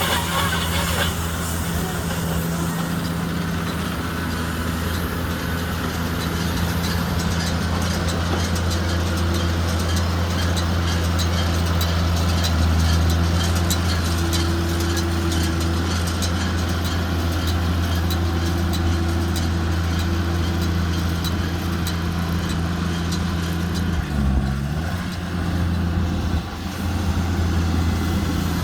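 JCB Fastrac 2170 tractor's engine running steadily while driving a McHale Fusion 2 combination baler-wrapper baling rice straw. The engine note dips briefly about three-quarters of the way through.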